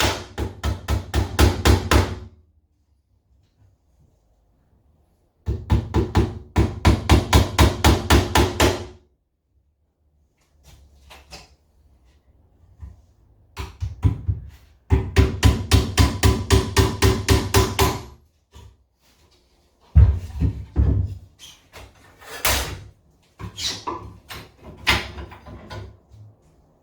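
Small pin hammer tapping frame nails through metal frame runners into the wooden rails of a Commercial hive super. It strikes in quick runs of light blows, about four or five a second, with pauses between runs and a few slower, scattered taps near the end.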